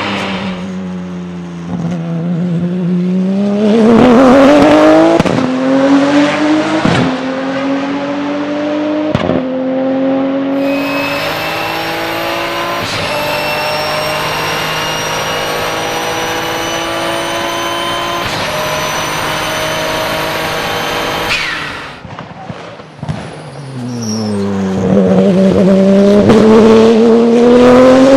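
Twin-turbo 3.9-litre flat-six of a Porsche 997 GT2 RSR, heard from the cockpit, pulling hard through three quick sequential-gearbox upshifts. It then runs flat out with a high, steady turbo whistle over the engine note. About twenty seconds in the throttle is lifted and the whistle drops away. After a short lull the engine revs up again under acceleration.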